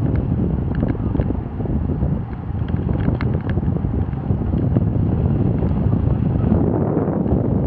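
Wind rushing over the microphone of a camera on a road bike moving at speed: a steady low rumble, with a few light clicks around the middle.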